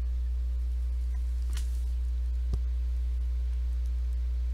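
Steady electrical mains hum, a strong low buzz with fainter steady overtones, with one short click about two and a half seconds in.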